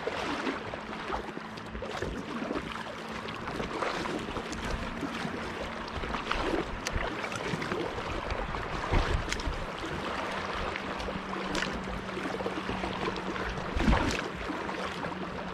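Lake water lapping and splashing around a moving kayak, with sharper splashes every two to three seconds, the loudest about nine and fourteen seconds in. A faint steady low hum sits underneath.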